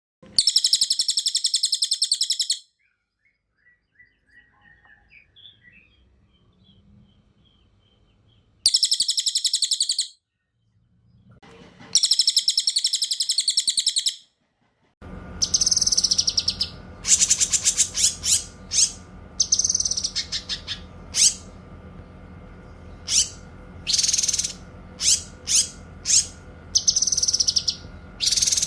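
Caged songbirds singing, a cililin and a cucak kinoy: three long, rapid, rolling trills of about two seconds each with pauses between them, then, from about halfway, a recording with a steady background hum and many short, sharp chirping phrases in quick succession.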